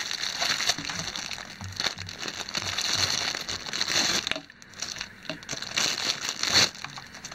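Clear plastic wrapping crinkling and crackling as it is unwrapped by hand from a headset cable, easing off briefly about four and a half seconds in, then a louder crackle near the end.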